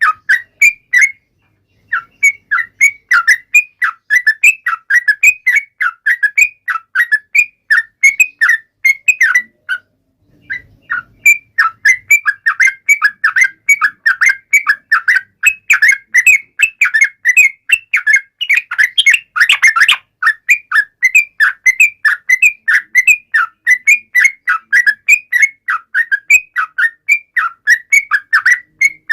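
Yellow-vented bulbul (trucukan) singing a fast, chattering run of short, bright whistled notes, several a second, broken by two brief pauses, about a second in and about ten seconds in.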